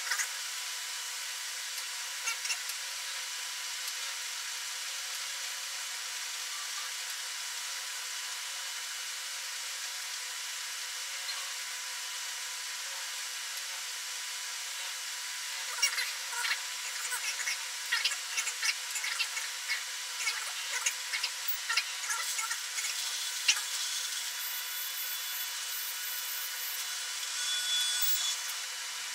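Small 3D-printed robotic cooking arm moving under motor power: irregular clicking and ticking from about halfway through, with a short whir just before the end, over a steady hiss.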